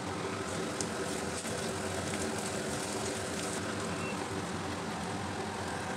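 Onions and crushed garlic sizzling steadily in hot mustard oil in a cast-iron kadai, with a few faint scrapes of a silicone spatula stirring.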